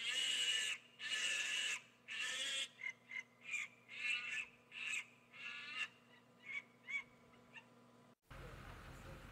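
Barbary macaque calling: three long, harsh screeching calls, then a string of shorter yelps. About eight seconds in the calls cut off abruptly and a steady low rumble takes over.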